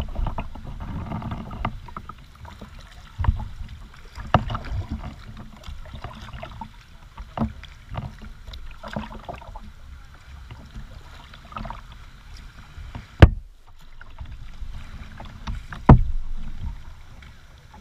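Kayak paddle strokes dipping and splashing in the water, with irregular sharp knocks, probably the paddle striking the kayak hull. The loudest knock comes about thirteen seconds in.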